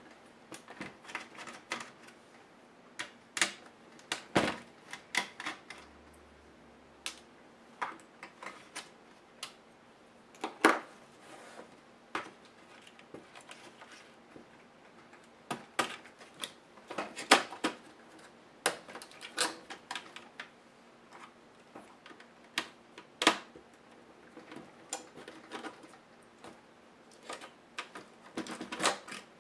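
Irregular clicks, taps and small knocks of laptop parts being handled: the motherboard, cables and connectors shifted in the hard plastic base of a Compaq CQ70 laptop, with a few sharper knocks among them.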